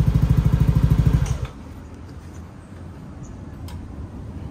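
Yamaha NVX scooter's single-cylinder four-stroke engine idling through an aftermarket slip-on exhaust, an even, rapid pulse that cuts off abruptly about a second in, leaving faint background noise.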